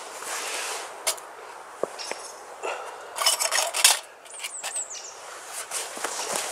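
Camping gear being handled and set up: scattered light clicks and knocks, with a burst of scraping and rattling about three seconds in.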